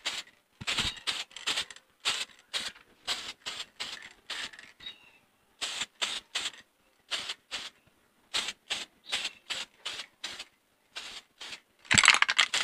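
Aerosol spray can of clear PP plastic primer sprayed in many short hissing bursts, about three a second, laying thin coats onto plastic covers. A longer, louder burst comes near the end.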